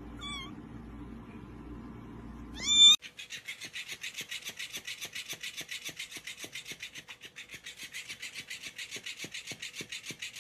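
A kitten mews faintly twice, then gives a louder, rising meow about three seconds in. After that, an electric flopping-fish cat toy wags its tail with a rapid, even clicking rasp of about seven strokes a second.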